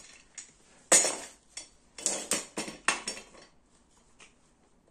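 Metal clanks and clinks of Kring Fit office-chair parts being handled and fitted together: the chrome gas-lift piston, the five-star base and the steel seat mechanism plate. The loudest clank comes about a second in, and several more knocks follow between two and three seconds.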